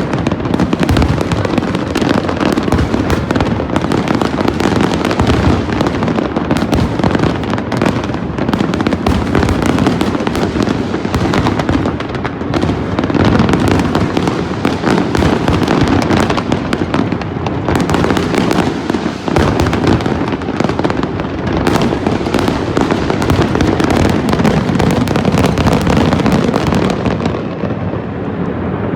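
Large fireworks display: a dense, unbroken barrage of bangs and crackles that thins out slightly near the end.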